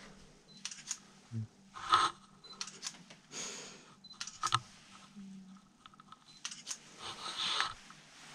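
Scattered clicks, knocks and brief rustles of people moving about on a littered wooden attic floor, over a faint steady low hum.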